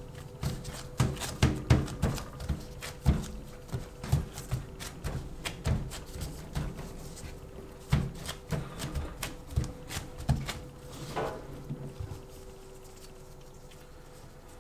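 Irregular dull thumps and taps of hands pressing and folding bread dough on a board while stuffing cheese into it. They come thick and uneven for about twelve seconds, then stop.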